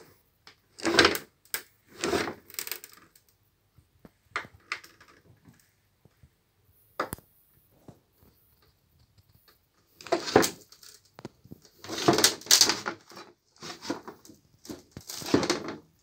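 Boots stomping on foam, crushing it with irregular crunches, some single and some in quick runs, the loudest about a second in and from about ten seconds in.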